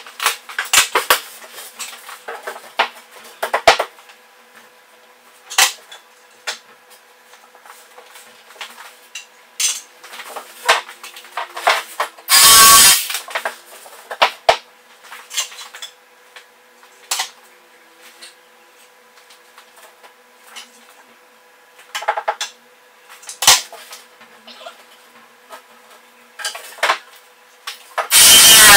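Knocks, clatter and scrapes of MDF boards and tools being handled and stood against a wall. A short loud burst of a power tool comes a little before halfway, and the power tool starts up again near the end.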